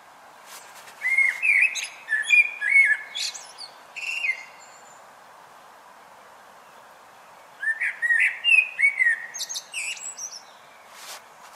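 A songbird singing in the dawn chorus: two phrases of whistled notes, some sliding in pitch, with higher twittering notes. The first phrase comes about a second in and the second about eight seconds in, over a steady background hiss.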